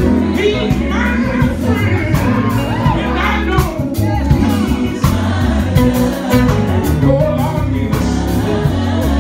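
Gospel vocal group singing live through microphones, backed by electric guitar and keyboard, over a heavy, steady bass line.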